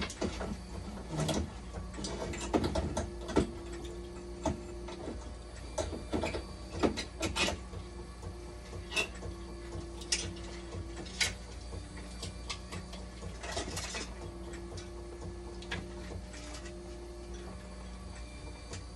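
Clicks and knocks of hands working parts inside an opened dialysis machine's hydraulics, over a steady low hum from the machine. A steady tone cuts in and out several times in the second half, and the clicking thins out after about eight seconds.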